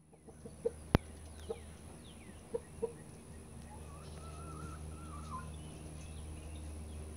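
Canada goose giving short, low clucking honks, four in the first three seconds, guarding its water tank from a second goose. A single sharp click about a second in is the loudest sound, and a thin wavering whistle comes near the middle.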